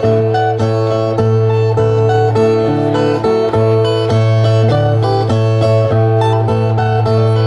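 Two metal-resonator ten-string violas (viola de repente) playing the instrumental interlude between sung stanzas of a cantoria. It is quick plucked strumming over held low drone notes.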